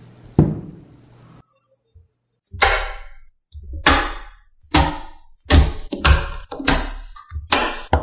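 A large block neodymium magnet set down with a dull thunk. After a short silence, cubes of small neodymium magnetic balls snap onto it one after another, each hitting with a sharp clack that rings briefly, about eight in all, coming faster toward the end.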